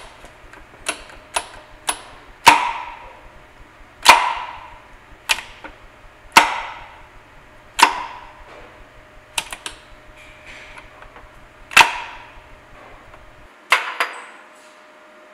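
Sharp metallic clicks and clunks, about a dozen at irregular spacing, each ringing briefly in the cast gearbox case, as the selector of a Ford Type E Rocket four-speed gearbox is moved through the gears. The spring-loaded detent plunger snaps into each gear position, giving positive engagement.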